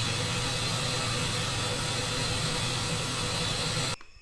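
A steady hiss with a low hum beneath it, which cuts off suddenly near the end.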